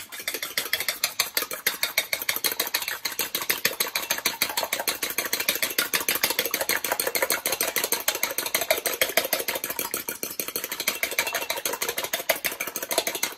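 Eggs being whisked by hand in a stainless steel mixing bowl: the utensil clatters against the metal in rapid, even strokes, several a second, without a break.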